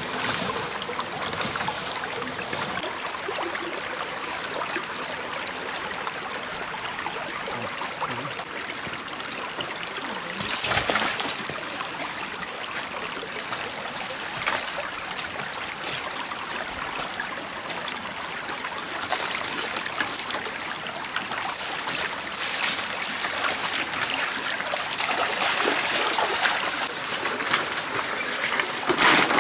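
Stream water flowing and trickling steadily, briefly louder about eleven seconds in and again near the end.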